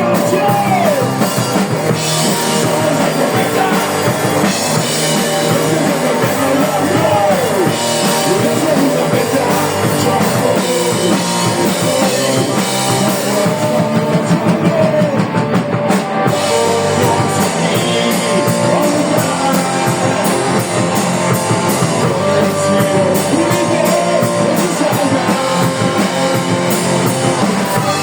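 Rock band playing live: drum kit and guitars in an instrumental passage of the song, loud and continuous, with pitched lines that slide up and down over the band.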